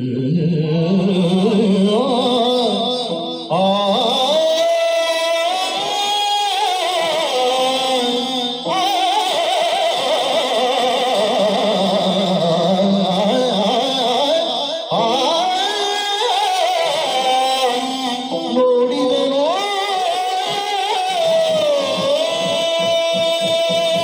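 Yakshagana song: one voice sings a slow, ornamented melody that glides up and down over a steady drone. A few short drum strokes come near the end.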